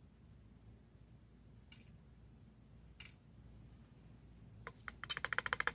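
Quiet room tone with two light, sharp clicks, then near the end a quick rattling run of clicks, about ten a second.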